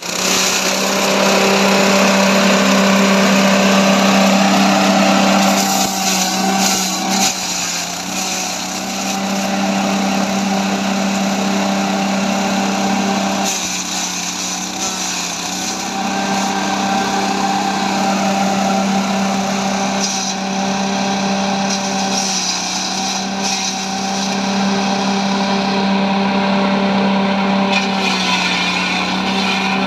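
Multifunction grass chopper machine running continuously: a steady hum under a noisy whir that shifts in tone a few times.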